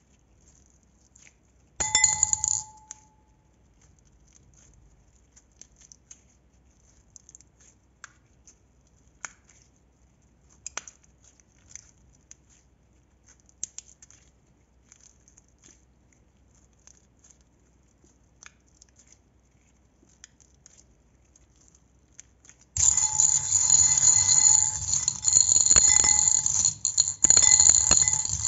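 A short loud bell-like ring about two seconds in, then faint scattered clicks, then a loud steady bell-like ringing that starts near the end and keeps going.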